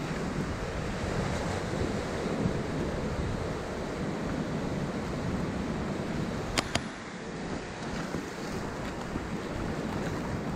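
Steady wash of surf at the shoreline with wind rumbling on the microphone. About two-thirds of the way through come two sharp clicks in quick succession.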